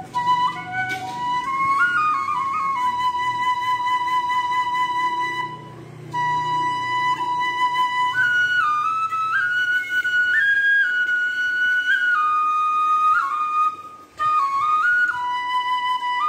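Background instrumental music: a single melody of held notes that step up and down between pitches.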